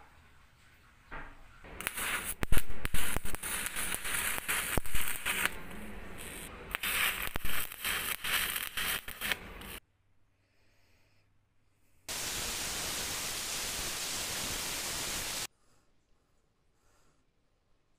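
Electric arc welding building up broken teeth on a hand drill's bevel gear: a loud, irregular crackle with sharp pops, starting about a second in and stopping abruptly after about eight seconds. After a short silence, an even, steady hiss runs for about three seconds and cuts off suddenly.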